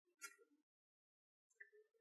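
Near silence, broken by two faint, brief sounds: one just after the start and one near the end.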